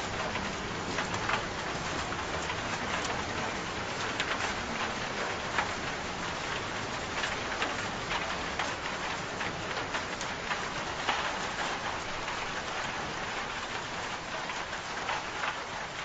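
Steady rain falling, a dense hiss with many sharper individual drop hits scattered through it, starting to fade slightly near the end.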